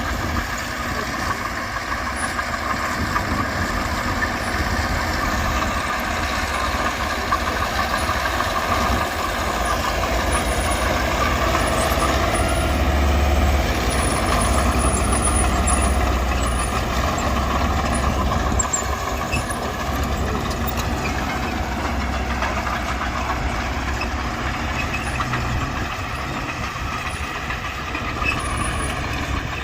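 Diesel engines of earthmoving machinery running under load. The sound grows louder and deeper for a few seconds around the middle.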